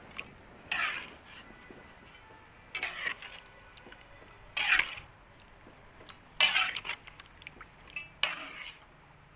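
Metal spatula scraping and stirring in a wok of simmering seblak broth with chicken feet, in about six short scrapes a second or two apart.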